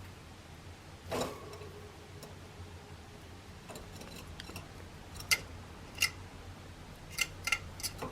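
Java sparrow pecking and tapping with its beak: a dull knock about a second in with a brief low ring after it, then sharp clicks, two near the middle and three close together near the end.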